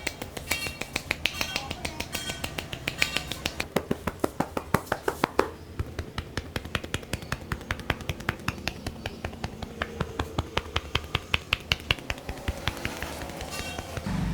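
Barber's hands making a rapid run of sharp clicking taps during a head massage, about four or five a second, with a short break about halfway through.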